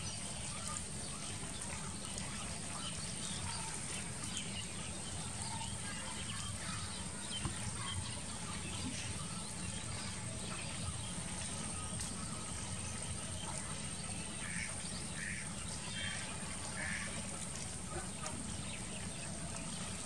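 Outdoor rural ambience: a steady background hiss with a thin, high, constant whine, and a few short animal calls about three-quarters of the way through.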